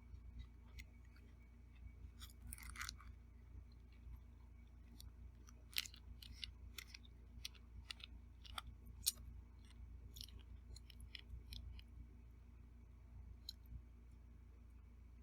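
A person eating beef teriyaki with zucchini and mushrooms: quiet chewing with scattered short clicks, two of them louder about six and nine seconds in, over a low steady hum.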